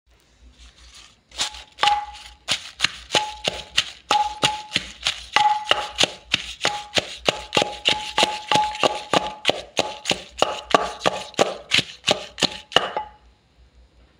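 A pestle pounding green leaves in a mortar, about three steady knocks a second, some strokes leaving a brief ringing tone. The pounding starts about a second and a half in and stops near the end.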